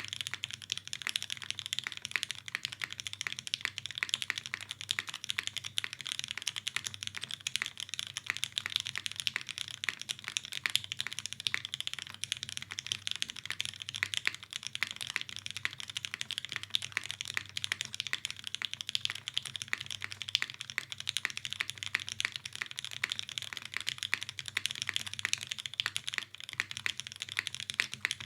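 Continuous fast typing on a custom mechanical keyboard with lubed Gateron Oil King linear switches in an undampened aluminium plate, capped with GMK keycaps. The keystrokes come as a dense, unbroken run of clicks.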